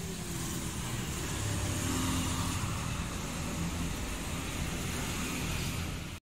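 Road traffic going by: a steady rush of engines and tyres with a low hum that swells slightly about two seconds in, then cuts off abruptly near the end.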